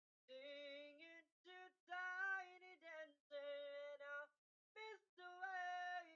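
A man singing solo and unaccompanied, faint and thin, recorded through a BM-700 condenser microphone plugged straight into a PC without phantom power at zero mic boost. The phrases drop to dead silence between notes, where noise suppression cuts out the background.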